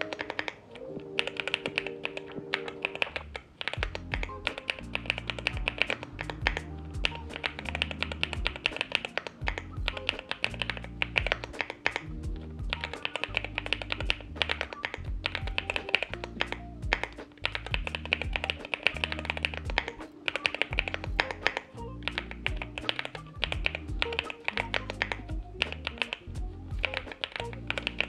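Fast, continuous typing on a Cidoo V65 V2 mechanical keyboard: stock, factory-lubed Akko V3 Cream Yellow Pro linear switches under MDA double-shot PBT keycaps, giving a rapid stream of key clacks. Background music with a bass line plays underneath.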